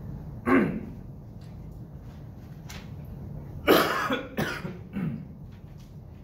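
A person coughing: one cough about half a second in, then three coughs in quick succession a little under four seconds in.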